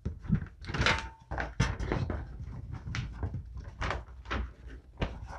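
A folded paper mini poster being unfolded and handled by hand: a quick run of irregular paper rustles and crackles.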